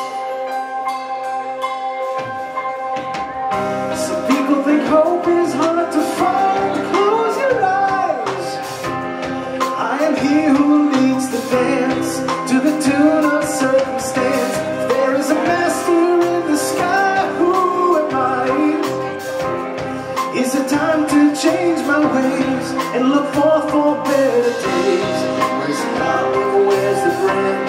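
Live rock band with drums, electric guitar, keyboards and bass, the drums coming in a few seconds in. Over it a male voice sings a winding, wavering melody with no clear words.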